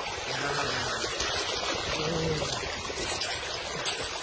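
Water sloshing and splashing in a small rock-bound pool as a metal chain is worked up and down through it by hand.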